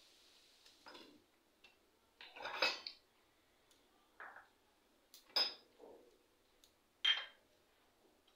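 Small metal puja vessels and bowls clinking and knocking as they are picked up and set down on a wooden shrine shelf: several separate clinks at irregular intervals, with the loudest cluster a few seconds in.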